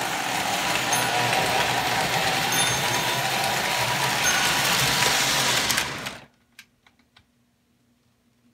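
Lionel postwar O-gauge 671 locomotive and 2403B tender running on tinplate track: a steady mechanical whir of the motor, gearing and wheels with a low hum. The sound cuts off abruptly about six seconds in, leaving only a few faint clicks.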